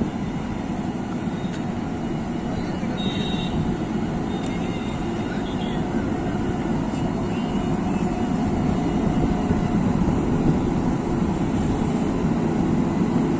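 Steady low rumble of an Indian Railways WAP-7 electric locomotive as it is coupled to the train's coaches, gradually growing louder.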